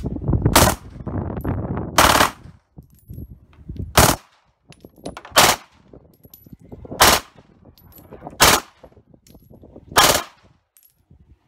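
Glock 18 9 mm machine pistol firing short bursts of fully automatic fire, about one every one and a half seconds, eight in all, each a sharp crack. The gun kicks hard.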